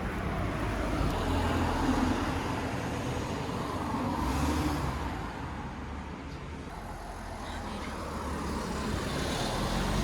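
Steady road-vehicle rumble and traffic noise, a low drone under a broad hiss, easing a little about halfway through and building again toward the end.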